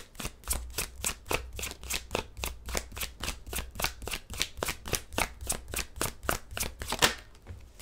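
Tarot cards being shuffled by hand: a quick run of soft card slaps and riffles, about five or six a second, ending with a louder click about seven seconds in.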